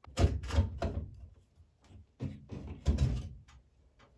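Sheet-metal motor assembly of an old Broan bathroom exhaust fan knocking and rattling as it is pried and slid out of its ceiling housing. The clatter comes in two bursts, one at the start and another about two seconds in.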